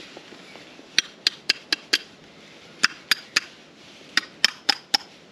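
A ratchet turning an oil filter wrench clicks as a new motorcycle oil filter is snugged down. The clicks come in short runs of three to five, about four a second, with brief pauses between the runs.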